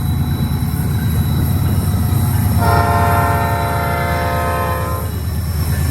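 Freight train passing with a steady low rumble of diesel locomotives and rolling cars. About two and a half seconds in, a locomotive's cast Airchime P5 horn sounds one long multi-note chord with a deep, mellow brass tone, lasting about two and a half seconds and cutting off cleanly.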